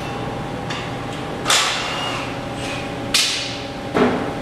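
Sharp metallic bangs, three of them at irregular gaps of about a second or more, each ringing briefly, over a steady low hum of workshop background.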